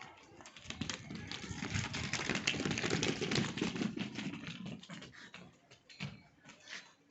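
A rapid, irregular clatter of many small taps and knocks. It builds over the first couple of seconds, is loudest in the middle, and thins out in the last two seconds.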